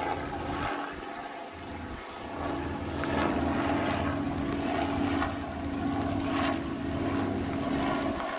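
Steady engine drone with a low hum that grows louder about two seconds in and then holds.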